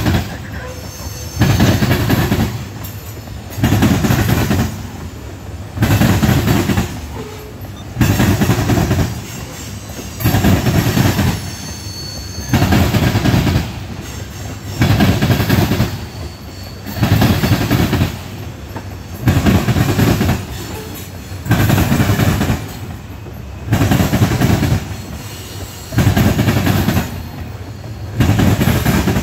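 Freight train of covered hopper cars rolling past, its steel wheels clattering over the rails in regular heavy bursts about every one and a half seconds, with an occasional faint high wheel squeal.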